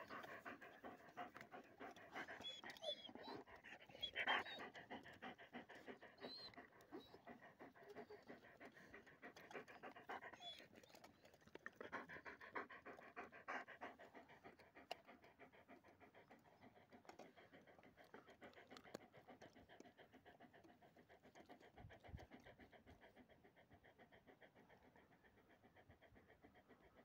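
German Shepherd dogs panting close by in quick, steady breaths, louder in places and fading somewhat toward the end.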